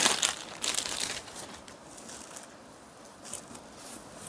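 Light brasso-print saree fabric rustling and crinkling as it is handled and unfolded. The rustles are loudest at the very start and again about a second in, with softer ones later.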